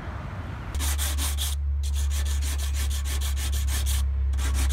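80-grit sandpaper rubbed by hand over body filler on a car's steel front fender, in quick back-and-forth strokes at about six or seven a second. It starts about a second in and breaks off twice briefly.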